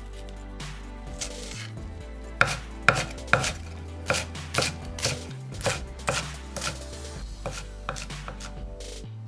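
Chef's knife slicing scallions on a wooden cutting board. The chops come as a run of sharp knocks, faint at first, then about two a second from roughly two and a half seconds in, the first few the loudest.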